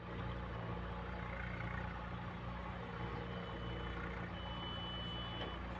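Heavy diesel machinery running steadily, with a deep engine hum, plus a thin high whine that sounds briefly about three seconds in and again for over a second near the end.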